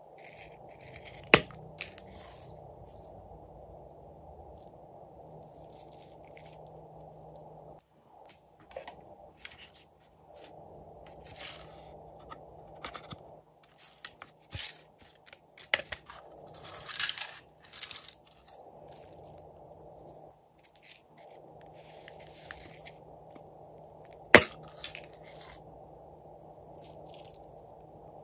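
Small tins and plastic containers of sequin confetti being handled and shaken out over a tray of glossy slime: a run of sharp clicks, taps and short rattles, with two louder clicks, one about a second in and one near the end.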